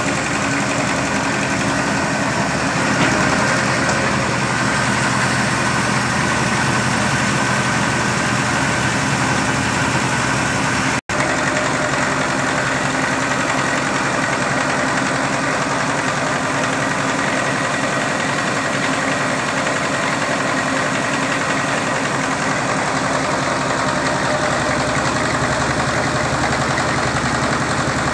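Stationary engine running steadily, belt-driving a flour mill (atta chakki) as it grinds grain; a continuous mechanical drone with a knocking beat. The sound drops out for an instant about eleven seconds in.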